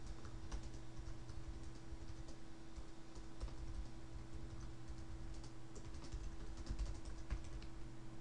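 Computer keyboard typing: irregular light key clicks, thicker toward the end, over a steady low hum.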